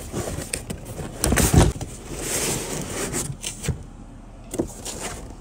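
Cardboard box sliding out of an outer cardboard shipping box, scraping and rustling. There is a heavy bump about a second and a half in and a few light knocks near the end.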